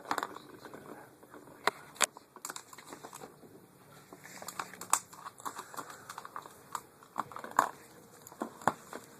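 A cat batting at a toy with a mouse on top: irregular clicks, taps and light rustling, a few sharper knocks among them.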